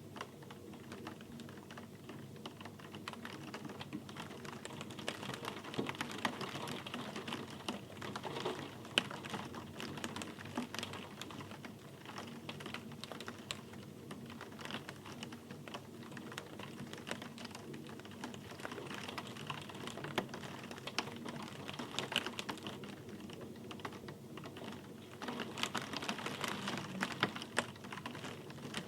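Rain falling, heard as a dense scatter of individual drops ticking on a hard surface over a soft hiss. The patter swells a few seconds in and again near the end.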